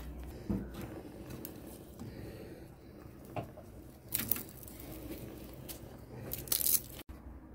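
Irregular crunching and rustling handling noises, with a few short louder crackly bursts.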